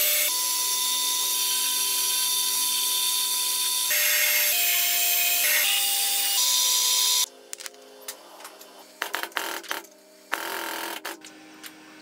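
Metal lathe turning a steel shaft: a steady cutting hiss with a whine that steps in pitch a few times, cutting off suddenly about seven seconds in. After that, small handling clicks and one brief louder burst of noise.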